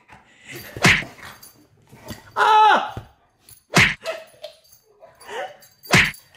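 Black Labrador Retriever barking in play: three short, sharp barks spaced two to three seconds apart, with a longer falling cry between the first two.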